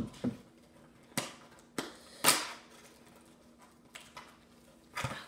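Cardboard-and-plastic toy blaster packaging being handled and pulled open: a handful of sharp clicks and crackles, the loudest a short rasp about two seconds in.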